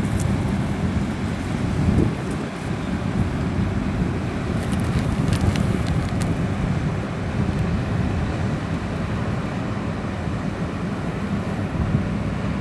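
Steady low rumble of wind buffeting the microphone, mixed with the engine drone of an inland pusher boat passing on the river.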